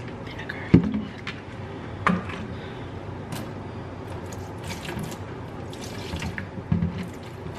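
Liquid pouring and splashing at a kitchen counter, with a few sharp knocks, the loudest about a second in.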